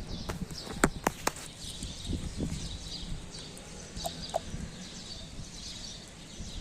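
Birds chirping repeatedly over steady background noise, with a few sharp clicks about a second in.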